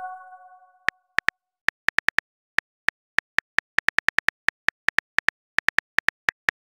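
Phone keyboard typing clicks: short, identical taps at an uneven pace, about five a second, simulating a message being typed. At the start, the last of a message chime rings out and fades.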